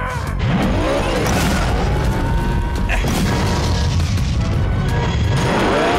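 Cartoon action soundtrack: dramatic score with booming impact effects and sweeping, swooping machine sound effects.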